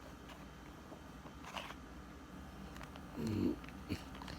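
Plastic Rubik's cube being turned by hand, giving scattered sharp clicks as the layers rotate. A short low hum, probably a voice, comes about three seconds in.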